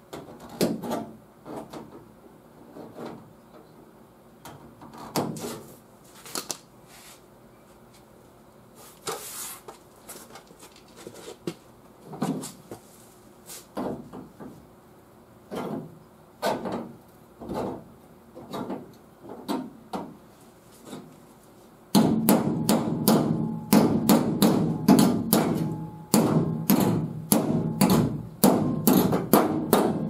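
Aviation snips cutting slots into the edge of a sheet-steel patch panel, with pliers bending the tabs: scattered sharp metallic snips and clicks, then from about two-thirds of the way through a faster, louder run of them.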